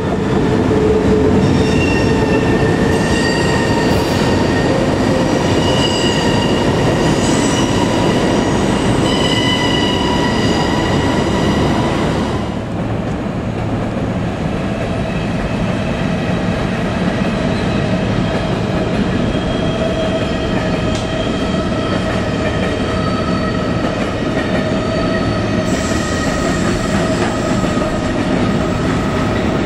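Electric trains passing close by: first an SBB Re 460 electric locomotive hauling its train, then, after a cut, a locomotive-hauled intermodal freight train with its container wagons rolling past. Steady high tones sound over the rumble of the wheels throughout.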